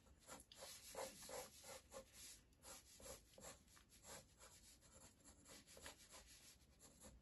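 Faint scratching of a pencil on paper in quick, short sketching strokes, several a second.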